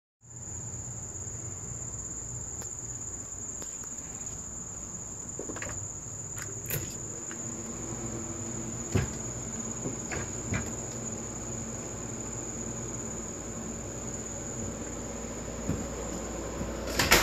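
Steady, high-pitched insect trill over a low hum, broken by a few short knocks, the loudest near the end.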